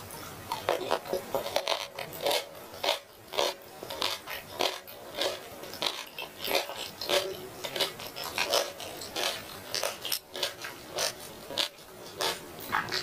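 Chewing and lip-smacking of a person eating roast chicken: short wet smacks and clicks, irregular, a few a second.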